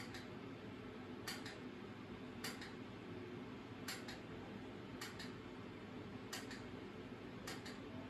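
Handheld response button of an Octopus 600 visual field perimeter clicking about every second or so, often as a quick double click of press and release, as the patient signals each light stimulus seen. Under it runs a low steady hum.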